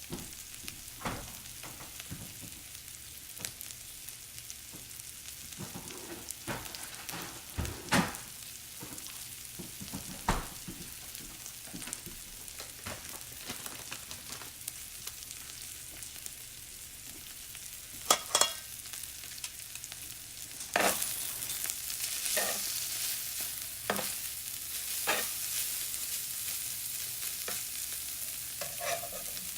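Chicken and buttered bread sizzling in a hot Copper Chef non-stick skillet, with scattered clicks and knocks of a utensil against the pan. The sizzle grows louder about two-thirds of the way through.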